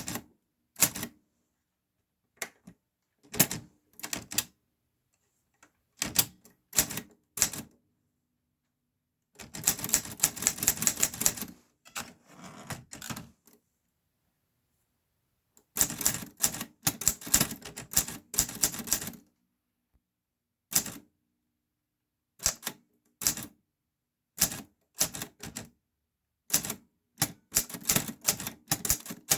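Clover New Star 10S dubeolsik Hangul typewriter being typed on: bursts of rapid key strikes broken by pauses of a second or two, with longer fast runs about a third of the way in, past the middle and near the end.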